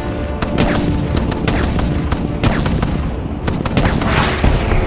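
Gunfire in rapid, irregular bursts of sharp shots, mixed over background music.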